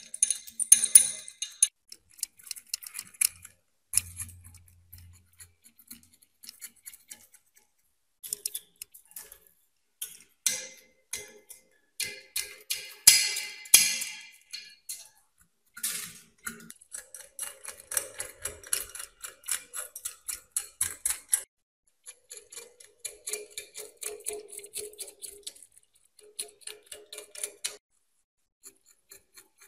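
A thin steel scraper picking and scraping crusted rust off a rusty antique meat grinder, in quick runs of small ticks and scratches with short pauses between them.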